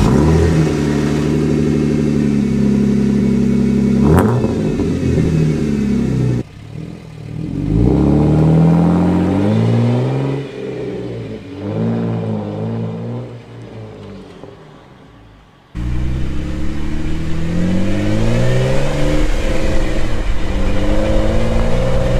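Jeep Wrangler JK's V6 breathing through an aftermarket Pypes cat-back exhaust with a smaller muffler, an aggressive note that has mellowed slightly after about 800 miles of burn-in. First it idles at the tailpipe with a quick blip of the throttle about four seconds in. Then it accelerates along the street through gear changes, with the pitch rising and dropping, and fades with distance; a few seconds later it is heard up close again, accelerating with repeated rising sweeps as it shifts.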